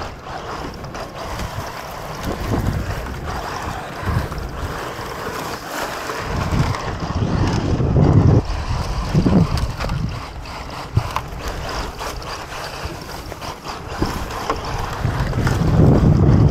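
Wind buffeting the microphone: a rough, noisy rumble that swells in gusts, heaviest about eight seconds in and again near the end.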